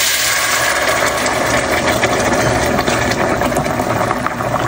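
Onions sizzling and crackling in a hot pan as they are stir-fried, with a dense run of quick clicks and a low hum underneath.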